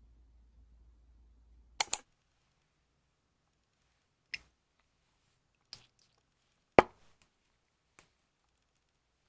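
A small glass bottle and its cap being handled: a close pair of sharp clicks near two seconds in, then four more single clicks and taps a second or so apart, the loudest about two-thirds through.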